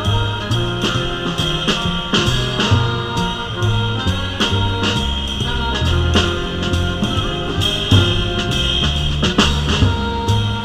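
Small jazz group playing in a swing feel: drum kit with cymbals over an upright bass line that moves from note to note.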